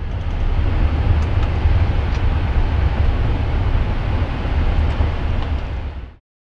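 Boeing 777 freighter rolling out on the runway after touchdown, heard from the cockpit: a steady low rumble with a hiss over it, which cuts off abruptly near the end.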